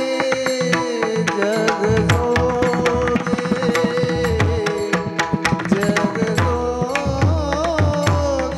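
Marathi devotional bhajan music: a long held melody line that bends in pitch now and then, over fast hand-drum strokes and sharp percussive strikes.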